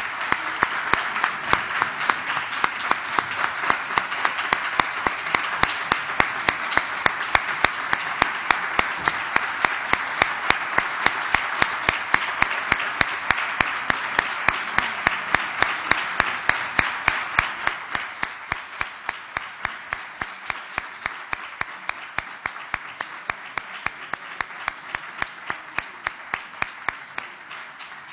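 Audience applauding, with one clapper close by keeping up steady, quick, sharp claps. The general applause thins out about two-thirds of the way through while the close claps carry on, and the applause dies down near the end.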